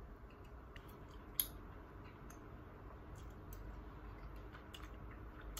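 Faint scattered clicks and light taps, one sharper click about a second and a half in, over a low steady hum, picked up through a laptop's built-in microphone.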